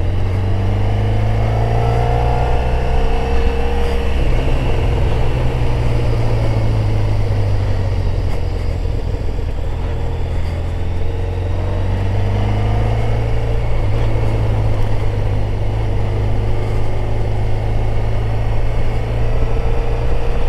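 Motorcycle engine running at road speed with wind noise on the microphone, a steady low rumble whose pitch dips and rises a little as the throttle changes.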